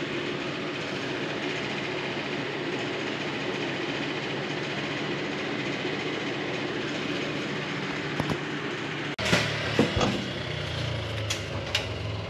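Steady mechanical running noise, a fan or motor, with a faint hum. About nine seconds in it changes abruptly to a lower hum with a few sharp knocks and clicks.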